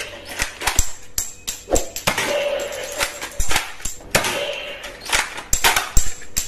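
Plastic toy guns clicking and clattering in quick irregular snaps and knocks, with short bursts of music-like tones in between.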